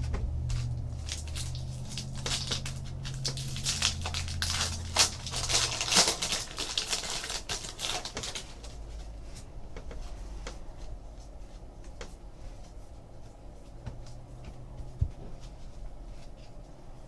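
A baseball-card pack's wrapper crinkling and cards being handled: a dense run of crackles for several seconds, then sparse single clicks as cards are flipped.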